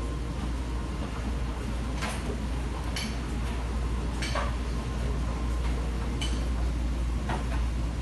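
Laundrette washing machines and tumble dryers running with a steady low hum, and about five light clinks at irregular times.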